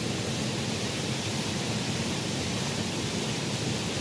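Small muddy stream flowing and rushing steadily, an even wash of moving water.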